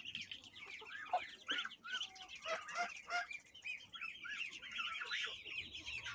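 A brood of Muscovy ducklings peeping, many overlapping quick high chirps with no break, with a few louder calls among them in the first half.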